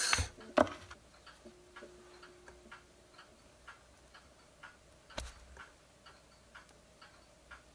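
Metal pliers and a small metal oil match being handled while the burnt wick is pulled out: a sharp click about half a second in and another about five seconds in. Faint, even ticking about twice a second runs underneath.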